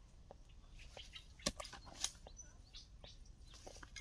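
Scattered light scrapes and ticks of a hand digging tool working dry forest soil, with two sharper strikes about a second and a half and two seconds in. A faint bird chirp comes through among them.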